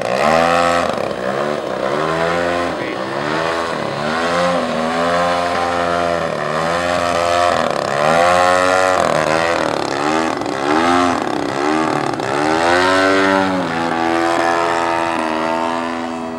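Radio-controlled aerobatic model airplane's engine and propeller, the throttle worked up and down again and again so the pitch rises and falls about once a second while the plane hangs nose-up in a hover. Near the end it settles to a steadier, quieter tone.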